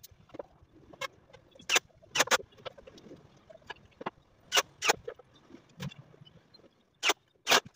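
Sharp wooden knocks and taps at irregular intervals, several in close pairs, as plywood cabinet pieces are handled and set against each other, with faint rustling and scraping between them.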